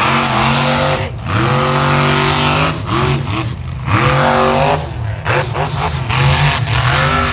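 Mega truck's engine revving hard at full throttle in about five bursts, its pitch sweeping up and dropping each time as the throttle is worked during a mud bog run.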